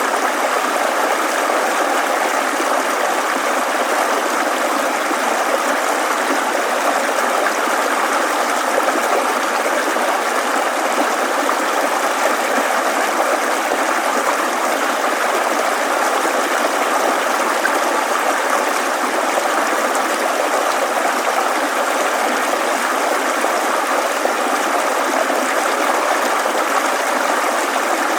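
Babbling mountain stream: a steady, even rush of shallow flowing water.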